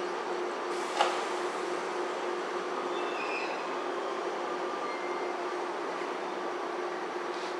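JR 413 series electric multiple unit at a station platform, starting to pull away: a steady hum and hiss from the train's equipment, with one sharp click about a second in.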